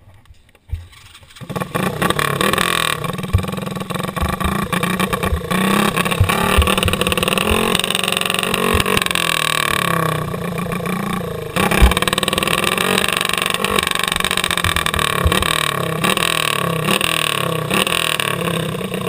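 Racing kart engine starting about a second and a half in, then running and being blipped, its pitch rising and falling repeatedly, with a sharp knock about halfway through.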